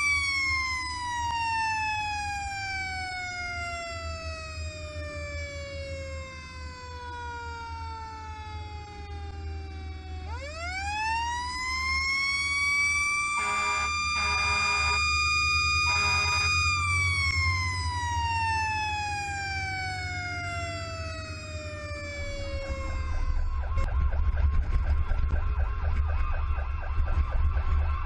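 Fire engine siren winding slowly down, spinning quickly back up to a steady high wail, then winding down again, with three short horn blasts while it holds. Near the end a fast warbling siren takes over over the truck's low engine rumble.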